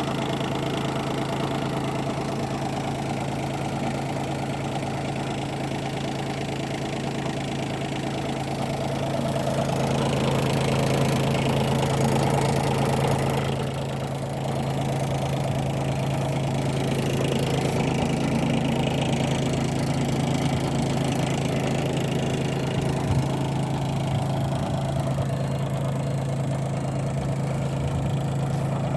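Bobcat B250 loader backhoe's diesel engine idling steadily, a little louder for a few seconds around the middle.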